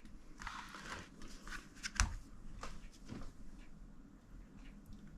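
Light handling noises from rifle parts being moved: soft rustling and a few small clicks, with one sharper click about two seconds in.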